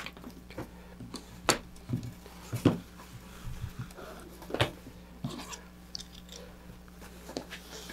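Shock cord and fabric chute protector being pulled and handled: soft rustling of cord and cloth with a few separate light knocks, the loudest a little under three seconds in.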